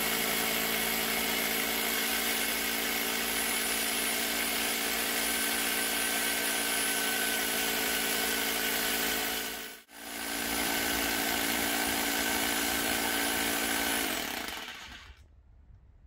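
Parkside PBH 1500 F6 1500 W SDS-plus rotary hammer drilling into a concrete block, running steadily with its hammer action. It breaks off briefly about ten seconds in, runs on, then dies away near the end.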